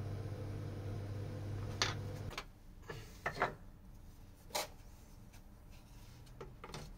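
Light wooden clicks and taps, a handful spaced irregularly, as small wooden model parts and a thin wooden dowel are handled on a workbench. Under the first two seconds a steady low hum runs and then stops.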